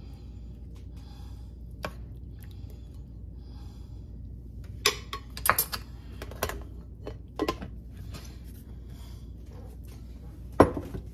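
A metal spoon clinking against a glass bowl and a ceramic bowl while sliced strawberries are spooned out: a scattering of short, separate clinks, with one louder knock near the end.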